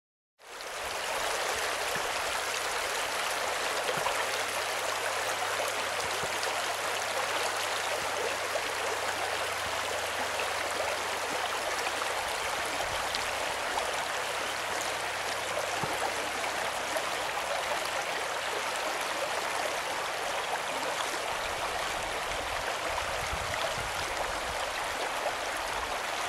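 Partly frozen stream flowing between snow banks and shelf ice: a steady rush of running water that fades in within the first second.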